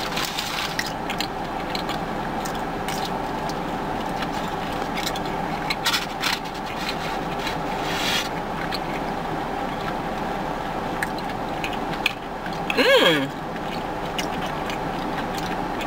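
A steady hum, like a car running, fills the background. Over it come a few small crunches and mouth noises of someone biting and chewing a peach cobbler egg roll, and a short hummed "mm" falling in pitch about thirteen seconds in.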